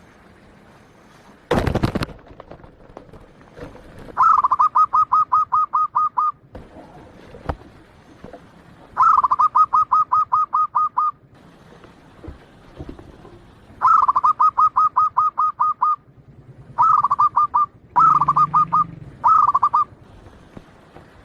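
Zebra dove (perkutut) singing its staccato cooing song: six runs of rapid, evenly spaced notes at about five a second, each run lasting from under a second to about two seconds. A short, loud burst of noise about a second and a half in.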